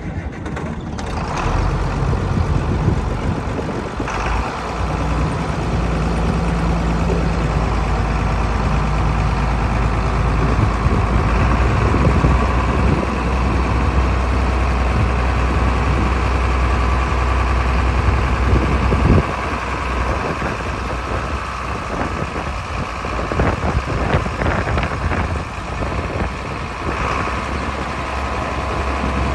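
John Deere 4010 tractor's six-cylinder engine running steadily as the tractor is driven and its front loader bucket is raised.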